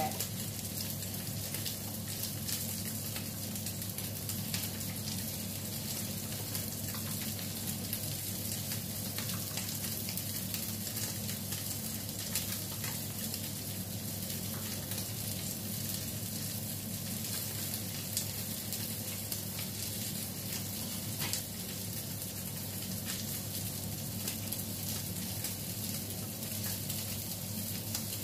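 Bitter melon rings filled with egg sizzling and crackling as they fry in a pan with a little oil, with a steady low hum underneath.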